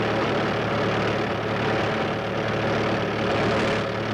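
A motor vehicle engine running steadily, heard through the hiss and hum of an old optical film soundtrack.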